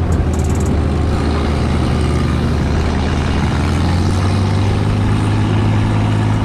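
Off-road buggy engine running steadily under way, a loud, even low hum with road and wind noise over it.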